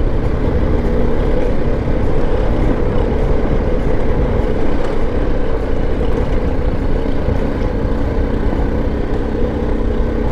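BMW G 310 GS single-cylinder motorcycle engine running at a steady pace on a gravel track, with a low rumble of wind and tyres underneath.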